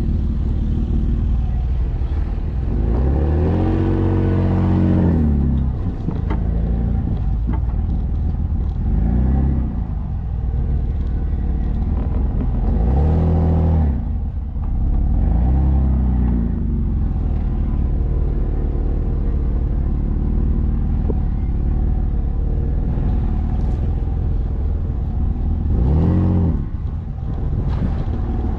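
Jeep Wrangler's engine running as it crawls along a dirt off-road track, rising in pitch with throttle and easing off again about five times over a steady low rumble.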